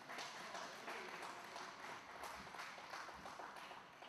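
Applause, hand claps from the spectators coming thick for a few seconds.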